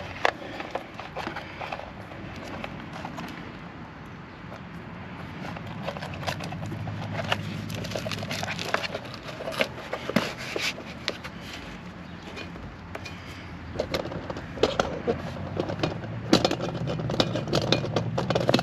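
Scattered clicks and light knocks of hands and tools at work, over a low steady hum that comes in after a few seconds.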